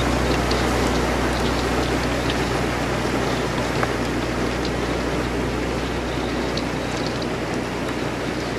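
A canal barge breaking through ice: a continuous rushing churn of water and broken ice at the bow over the steady low hum of its engine, with scattered small ticks.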